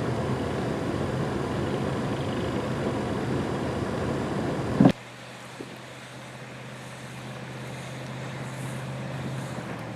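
Motor vehicle engine running steadily amid snowstorm traffic and plowing. About five seconds in the sound drops abruptly to a quieter, steady low engine hum that slowly grows louder.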